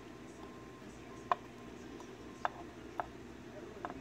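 Tweezers setting the pins of a gutted BKS 5-pin lock, spool pins among them, into a wooden pin tray: four small sharp metal clicks, irregularly spaced about half a second to a second apart.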